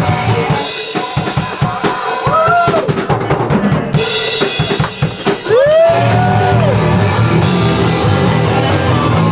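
Live punk rock band in a small room. Drums and crashing cymbals carry the song for several seconds with little bass or guitar under them, then the full band with distorted guitar and bass comes back in about six seconds in.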